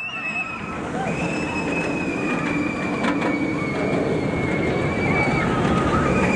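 Roller coaster train running along its steel track: a steady rumble that grows a little louder, with a high wheel squeal held for several seconds that sinks slightly in pitch.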